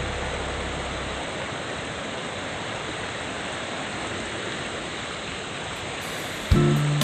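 Waterfall rushing with a steady, even roar of falling water. Background music comes back in near the end.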